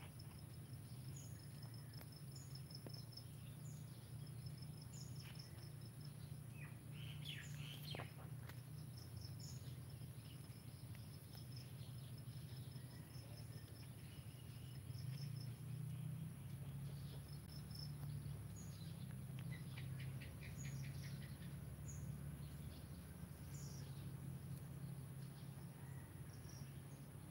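Faint garden ambience: insects trilling in rows of short high pulses over a steady high hiss, birds chirping now and then, and a low steady hum beneath.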